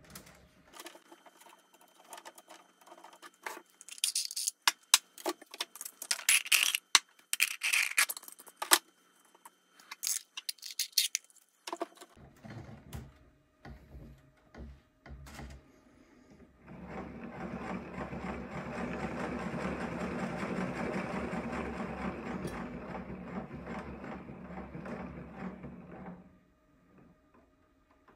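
Hard plastic filament spools and 3D-printed winder parts clicking, knocking and scraping as the spools are lifted off and swapped. About seventeen seconds in, a steady mechanical whirring starts and runs for about nine seconds before stopping.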